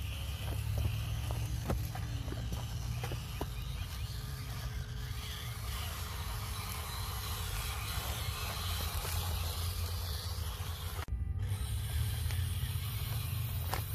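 Hobby Plus CR-18 RC crawler's electric motor and gear drivetrain running steadily as the truck crawls over trail ground, with scattered sharp clicks of tyres and chassis on rocks and a sudden short break about eleven seconds in.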